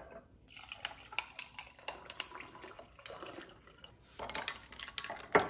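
Ice cubes clinking into a drinking glass and juice being poured over them: many sharp clinks over a soft pouring sound, with a loud clunk near the end.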